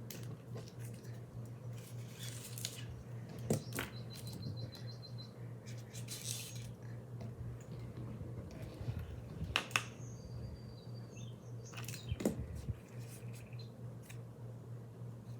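Handling noises from sorting small snap-button pieces: a few sharp clicks and knocks over a steady low hum, with some faint high chirps.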